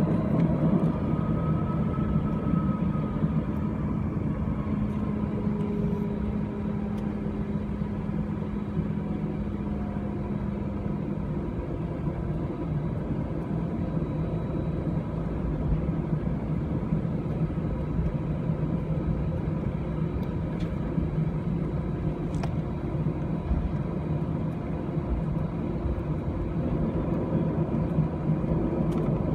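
Steady cabin rumble of an Airbus A320-200 heard from a seat over the wing, with its jet engines running at an even, low power, with no spool-up. A low hum and faint whining tones sit over the rumble; the hum fades out about a third of the way through.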